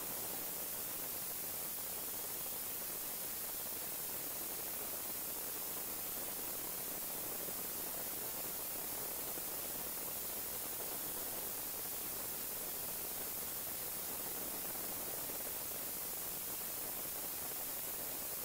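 Steady, even hiss like static, with no other distinct sounds.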